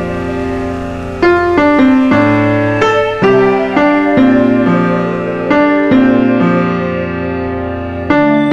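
Slow background piano music: chords struck about once a second and left to ring.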